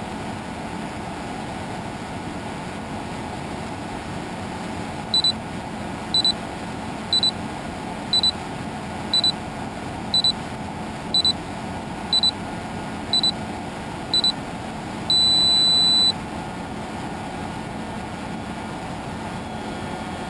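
Electronic beeper on a radio-control transmitter counting down: ten short high beeps about once a second, then one long beep lasting about a second, the pattern of a flight timer running out. A steady background hiss runs under it.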